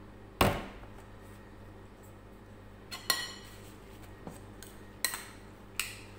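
Kitchenware clinking: a metal spoon and a glass mixing bowl knock against a cooking pot as rice is tipped in. There are about five sharp clinks with a short ring, the loudest about half a second in.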